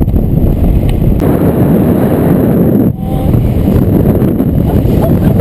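Loud wind rushing over the microphone, with a brief drop about three seconds in.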